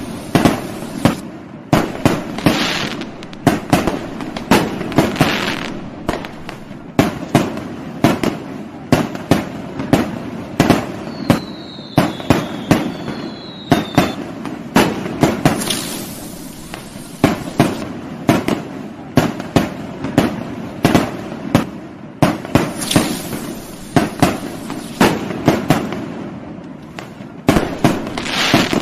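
Fireworks going off in a dense, continuous barrage: rapid irregular bangs with crackle between them, and two short falling whistles near the middle.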